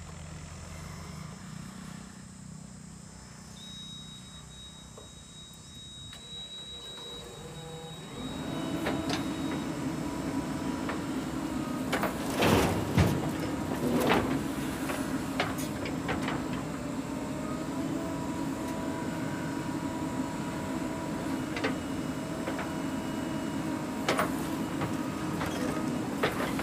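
JCB 3DX backhoe loader's diesel engine running under hydraulic load as the backhoe arm digs and swings. The engine gets louder about a third of the way in and holds steady, with a few sharp clanks near the middle.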